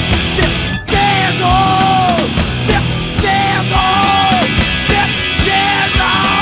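Loud hardcore punk band music with a full band playing and pitched lines sliding up and down. The band stops for a split second just under a second in, then crashes back in.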